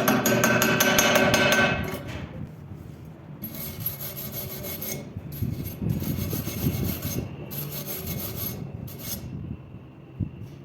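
A loud, dense crackle for about the first two seconds, then a series of rubbing, scraping strokes on metal, each lasting about a second with short pauses between them.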